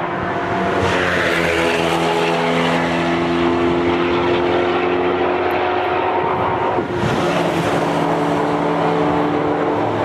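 Cars approaching at speed on a race track, their engines running under load. The engine notes overlap and slowly shift in pitch, with a brief dip about seven seconds in.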